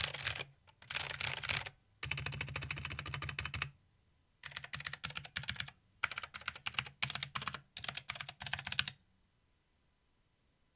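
Mechanical keyboard with clicky Gateron Blue switches being typed on in quick bursts of sharp, crisp clicks with short pauses between them, stopping near the end.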